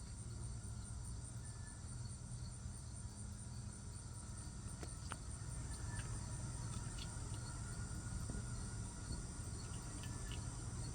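Steady high-pitched insect chirring over a low, even background rumble, with a few faint ticks.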